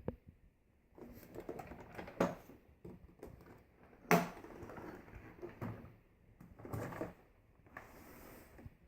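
Hard plastic parts being handled: clicks, knocks and rattling in several irregular bursts, with one sharp knock about four seconds in. The vacuum's motor is not running.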